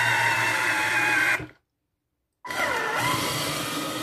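Vinci hands-free citrus juicer's electric motor running steadily with a whine while pressing oranges. The sound cuts out completely for about a second midway, then comes back with its pitch dipping and rising again before running steady.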